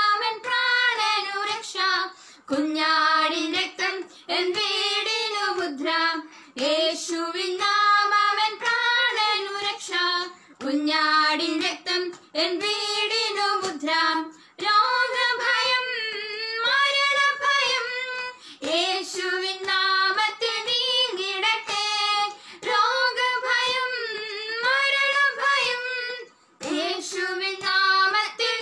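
Two young women singing a Malayalam Christian worship song together, unaccompanied, in phrases of a second or two with short breaths between.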